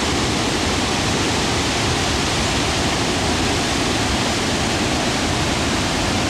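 Large river waterfall pouring over boulders: a steady, even rushing of water.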